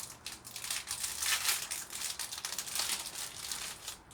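Plastic sweet wrapper crinkling and crackling as a roll pack of Mentos is torn and worked open by hand, in irregular handling rustles.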